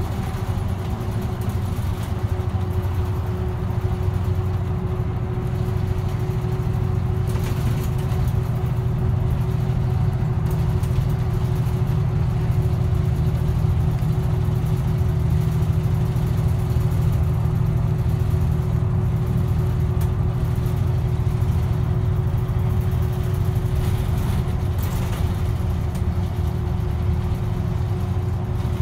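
A bus under way, heard from inside the cabin: engine and road noise make a steady low drone, with a thin constant hum running above it.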